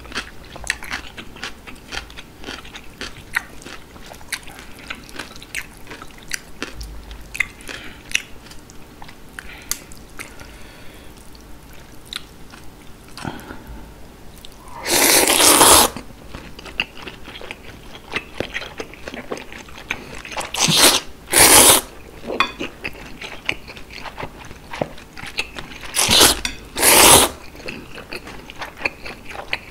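Close-miked eating of chewy noodles and pigs' feet: steady wet chewing clicks, with loud noodle slurps. There is one long slurp about halfway through, then two pairs of short slurps later on.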